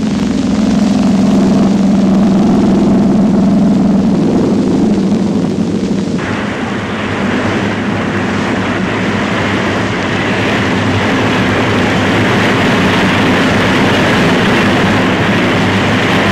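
Steady drone of aircraft engines. About six seconds in it gives way suddenly to a loud, even rushing noise that lasts to the end.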